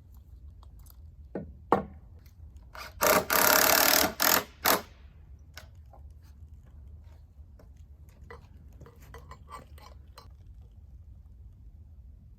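Wood being worked with a tool: a harsh rasping burst about a second long about three seconds in, then two short ones, with scattered light knocks and clicks.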